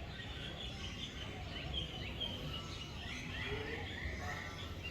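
Many birds chirping and calling together, short overlapping high notes, over a steady low background rumble.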